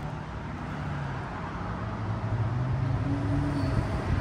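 A vehicle running close by: a low, steady drone with a broad rushing noise that grows gradually louder, and a higher held tone joining about three seconds in.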